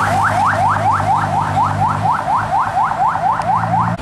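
An electronic siren-style horn sounding a fast, repeating rising whoop, about five a second, over the steady hum of a truck engine; it cuts off abruptly at the end.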